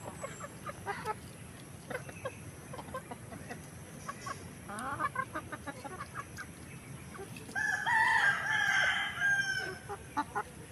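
Chickens clucking in short calls while feeding, with a rooster crowing once, loudly, about eight seconds in.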